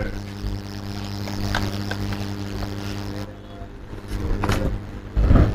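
A steady low hum with evenly spaced overtones, with a few light clicks and a loud knock near the end.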